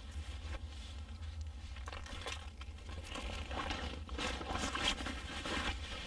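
Soft rustling and crinkling that grows busier and louder in the second half.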